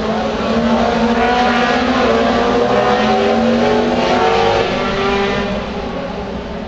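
Race car engines running at speed out of sight, several engine notes rising in pitch through the middle, then getting quieter after about five seconds.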